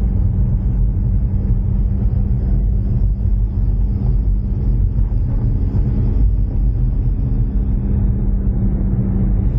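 Ford Mustang EcoBoost's turbocharged four-cylinder cruising at a steady pace: engine and road noise with a constant low hum running underneath.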